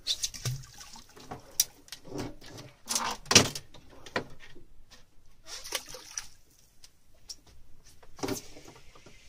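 Irregular knocks, clatter and rustling of hands working a rig of plastic squid jigs off a boat's gunwale and letting it down over the side. The loudest knock comes about three seconds in, and another near the end.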